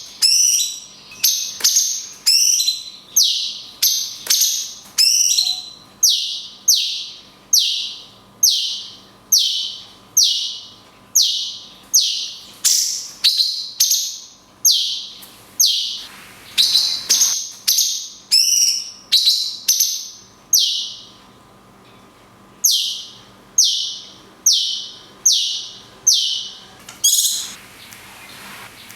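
Cucak cungkok songbird repeating a short, high call over and over, about one and a half a second, each note sliding quickly downward. The series breaks off briefly a little past two-thirds of the way, then resumes.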